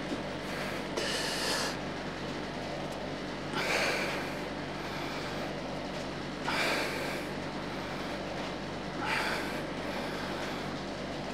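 A man breathing hard through a set of dumbbell bench presses: four forceful, hissing breaths, one with each rep, about two and a half to three seconds apart.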